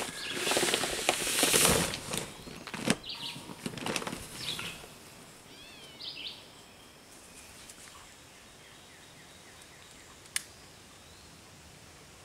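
Heavy paper sacks of clay rustling and scraping as they are dragged across a pickup truck bed and lifted out, loudest in the first two seconds, with a couple of knocks soon after. Birds chirp now and then in the background.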